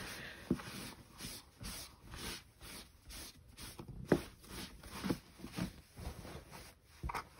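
Faint, quick scratchy strokes, about three a second, with a few light taps in between: small hand-handling sounds of a painter's brush and tools on a craft mat.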